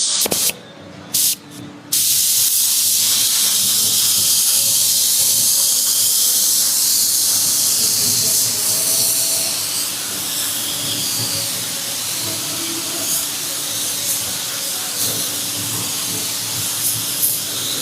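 A steady spraying hiss, with two short bursts in the first two seconds before it runs on continuously, slightly softer in the second half.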